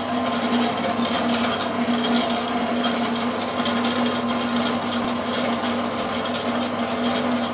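Planetary mixer running steadily, its motor giving a continuous even-pitched hum as the beater turns through batter in the stainless steel bowl.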